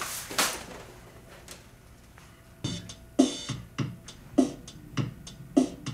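Electronic keyboard playing a built-in drum-machine beat, starting about two and a half seconds in as a steady pattern of drum hits roughly every half second.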